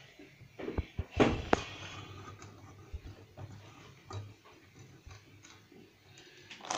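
Several sharp clicks and knocks in quick succession about a second in, then sparse faint ticks.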